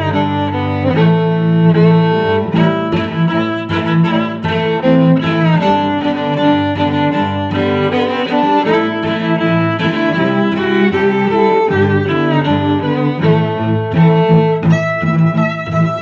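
Background music played on bowed strings, a violin melody over steady low cello notes.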